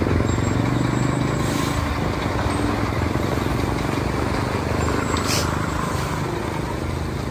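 Motor vehicle engine running steadily and gradually fading as it moves away, with two brief sharp clicks.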